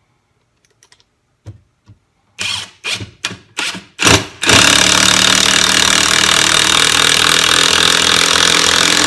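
Mensela 18V cordless impact wrench, fitted with its impact driver adapter, driving a 3-inch wood screw into a block of wood. A few faint clicks come first, then several short trigger bursts start the screw. From about four seconds in, the tool runs continuously under load as the screw sinks all the way in.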